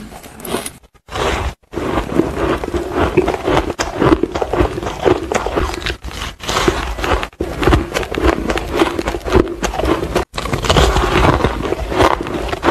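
Close-up crunching and squeaky chewing of fluffy, dry, powdery ice, bite after bite, broken by a few short sudden silences.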